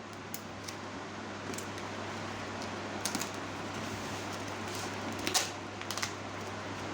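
Packaging being handled during an unboxing: a few scattered light clicks and taps, the sharpest about five seconds in, over a steady low hum and hiss.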